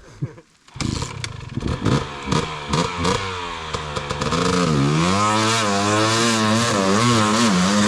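Dirt bike engine revving hard on and off, its pitch rising and falling, with clattering knocks. From about four and a half seconds in it holds a steadier note at full throttle under load, with quick dips.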